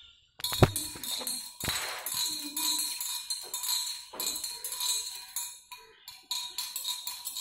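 A metal spoon stirring sugar into a glass of water, clinking repeatedly against the glass. Two louder knocks come in the first two seconds.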